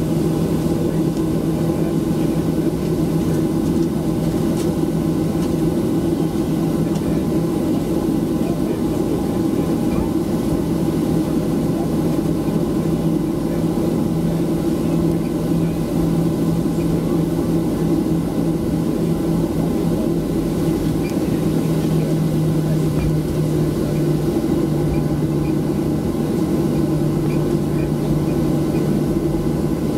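Steady cabin drone of a Boeing 737-700 taxiing, its CFM56-7B engines at low taxi power, heard inside the cabin over the wing. Its low hum steps down slightly in pitch about two-thirds of the way through and again near the end.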